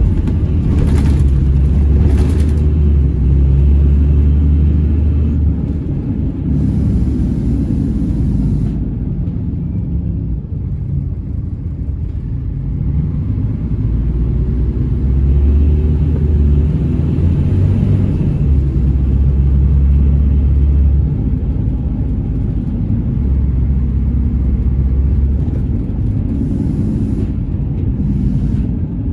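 Scania Irizar Intercentury bus in motion, heard from inside the passenger cabin: a steady deep engine and road rumble that swells and eases with the throttle. A few short high hisses come through, the longest about seven seconds in.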